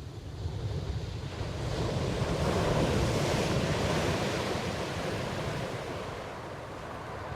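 Ocean surf: a wave swells up to a rushing peak about three seconds in, then slowly washes back down.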